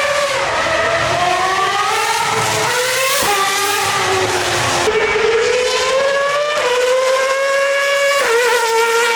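Formula One car engine running at high revs. Its pitch climbs steadily and then drops or steps sharply five times, with a hiss of exhaust and tyre noise beneath.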